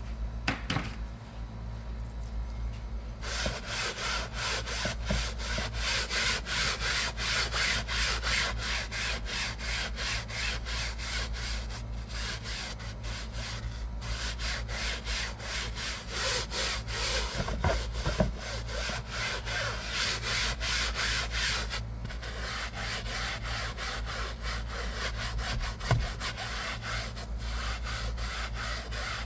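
Car seat upholstery, wet with cleaning solution, being scrubbed by hand in rapid, rhythmic back-and-forth strokes. The scrubbing starts about three seconds in and keeps up a steady scratchy rasp.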